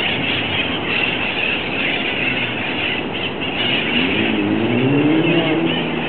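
Street traffic running steadily, with one vehicle's engine rising in pitch as it accelerates about four seconds in.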